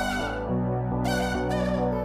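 Background music: sustained chords over a steady bass, with a crisp beat.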